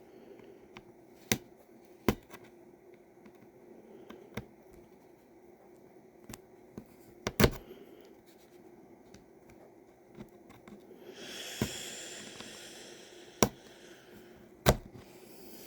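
Small plastic clicks and scraping as the housing clips of a Cherry MX Blue keyboard switch are pried at to open it. There are a few sharp clicks spaced seconds apart, and a stretch of scratchy rubbing about two-thirds of the way through.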